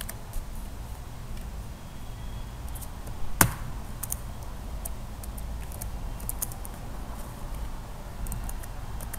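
Low steady hum with a few faint ticks, and one sharp click at the computer about three and a half seconds in.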